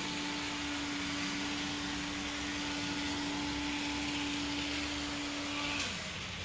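Small electric motor of a model vehicle running, a steady hum over a hiss; the hum slides down in pitch and stops about six seconds in.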